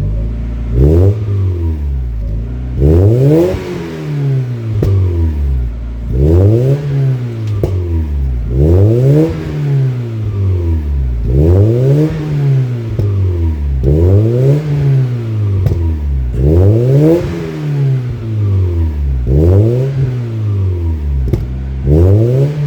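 A 1993 Mazda Miata's 1.6-litre four-cylinder engine, breathing through a MagnaFlow cat-back exhaust, being revved over and over, about ten times. Each rev climbs and falls back smoothly over about two seconds.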